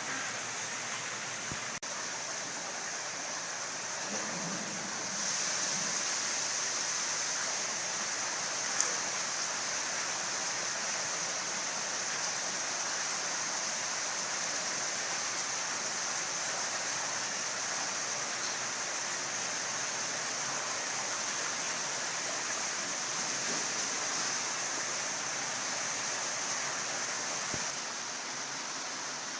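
Steady rush of running, splashing water, louder from about five seconds in until shortly before the end, with one sharp click about nine seconds in.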